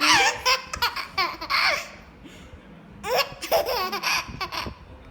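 A young child giggling in two bouts of laughter, the second starting about three seconds in, while he has the hiccups.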